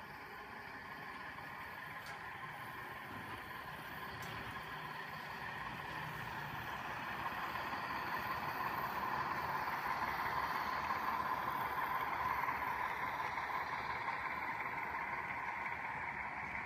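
Model passenger train running on the track, with a steady whirring rumble from its wheels and motor. It grows louder as the train comes closer, loudest about two-thirds through, then eases a little.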